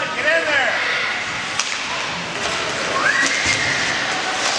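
Youth ice hockey play: skates scraping the ice and sticks clicking, with shouts near the start and a long call about three seconds in.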